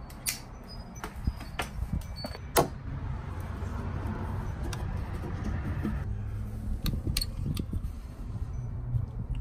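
Metal hand tools clinking as vise grips are picked up, then scraping and clicking as a seized, snapped-off deck stud is worked out of the wood, over a low rumble. The loudest click comes about two and a half seconds in.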